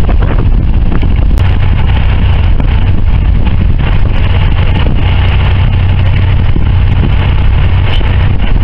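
Boat engine running steadily, a continuous low hum under a loud even rushing noise.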